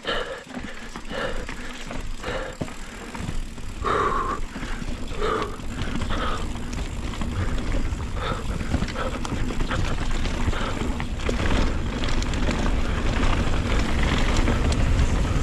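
Scott Ransom full-suspension mountain bike running fast down a rough, rocky trail, heard from a chin-mounted camera: a rushing rumble with scattered rattles and clicks that grows louder as speed builds. Through it comes the rider's heavy breathing, short hard breaths about once a second, laboured at high altitude.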